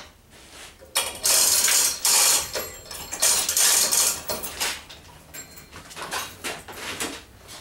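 Metal ratcheting and clattering from a hand-worked mechanism on the chain rigging that holds the rotary engine: two long loud bursts in the first half, then lighter clicks and rattles.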